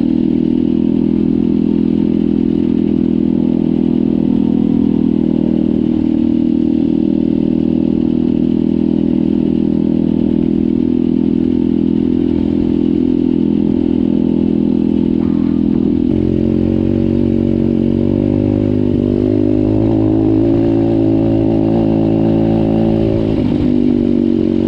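Pit bike's single-cylinder four-stroke engine running at steady moderate revs under way, ridden gently while it is being run in. Its note shifts about two-thirds of the way in and again near the end.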